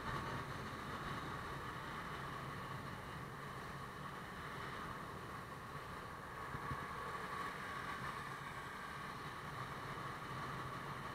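Motorbike engine running steadily at cruising speed, with the rush of wind and tyre noise on the bike-mounted microphone.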